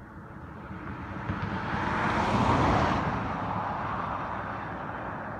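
A car driving past: tyre and road noise swells to a peak about two and a half seconds in, then fades away.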